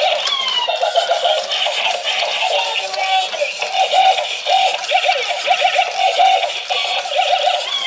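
Thin electronic warbling and chirping with no bass, in a quick fluttering pattern, with a falling swoop shortly after the start and another near the end.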